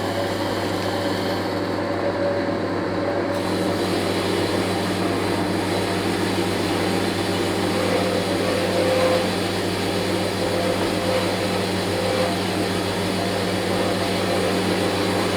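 4x6 metal-cutting bandsaw running, its electric motor and drive turning the blade with a steady hum and whir, on its first test run after being rebuilt. The noise grows a little brighter and fuller about three seconds in.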